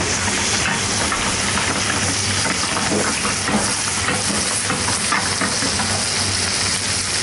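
Floured frog legs frying in foaming butter in a frying pan: a steady, dense sizzle and crackle as they cook gently.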